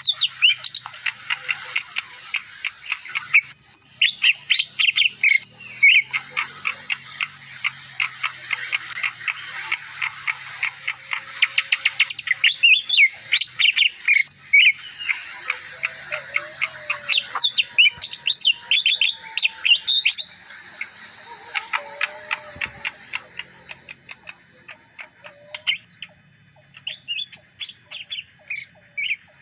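Leafbird singing a long, fast run of varied chirps and short whistled glides, growing sparser and quieter over the last few seconds.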